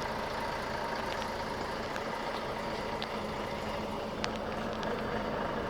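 Freight train moving very slowly through a level crossing: a steady rumble with a few short clicks.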